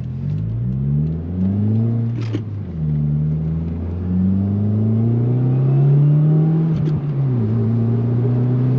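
Subaru WRX's turbocharged FA20 flat-four engine, heard through a Greddy RS Race catback exhaust, accelerating through the gears. The pitch climbs, drops at an upshift about two and a half seconds in, climbs again, drops at another shift about seven seconds in, then climbs once more. There is a small pop near each shift.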